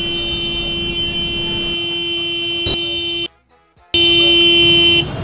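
Vehicle horn held down in one long steady blast that breaks off about three seconds in, followed after a brief gap by a second, louder blast lasting about a second.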